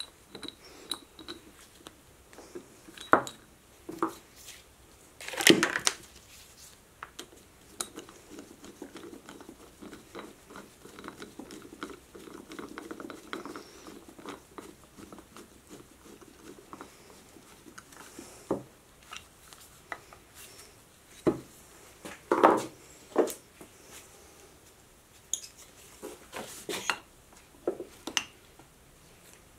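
Metal plates and hand tools knocking and clinking as they are handled and set down on a workbench, in scattered single knocks. Partway through there is a stretch of soft rubbing while a screw is driven in.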